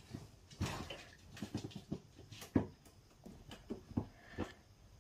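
A dog tearing and chewing at a cardboard box with its teeth: irregular crackles, rips and crunches of cardboard, the loudest about two and a half seconds in.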